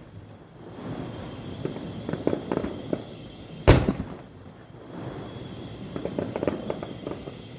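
Fireworks going off: one sharp boom a little past the middle, with stretches of rapid crackling before and after it.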